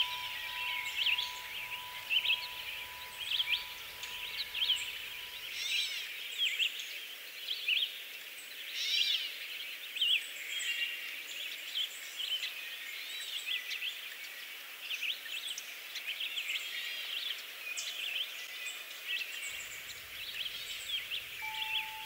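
Many birds chirping and calling over one another in quick short notes. A steady high tone sounds under them for the first several seconds and comes back near the end.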